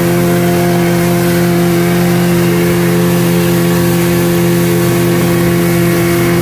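Mercury 125 outboard motor running at a steady high speed under load, towing, holding one even pitch, over the hiss of churning wake water and wind.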